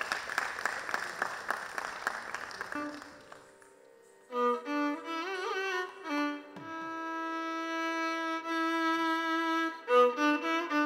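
Audience applause dying away over the first three seconds, then after a short pause a Carnatic violin plays a melodic phrase with sliding ornaments and long held notes, starting the accompaniment for the jatiswaram.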